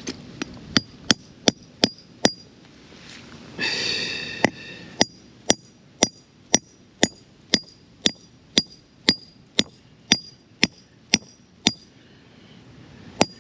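Claw hammer driving a steel wedge anchor into a drilled hole in concrete: a long series of sharp metal-on-metal strikes, about two a second, each with a short metallic ring. The hammering pauses briefly about three seconds in, with a short scraping noise, then resumes and stops near the end.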